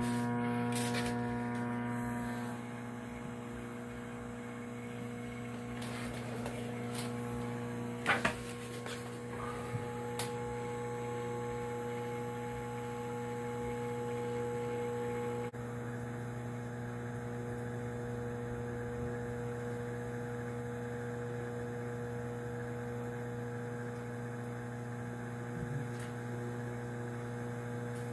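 Microwave oven running, a steady electrical hum from its magnetron and transformer, while it heats popcorn. A few sharp clicks stand out, the loudest about eight seconds in.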